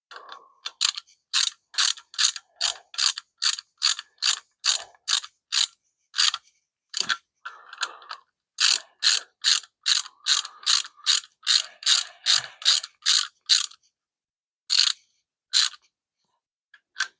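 Hand ratchet wrench clicking in a steady run, about three clicks a second with a few short breaks, as nuts are tightened down on bolts. The clicks stop about three-quarters of the way through, with two last clicks after.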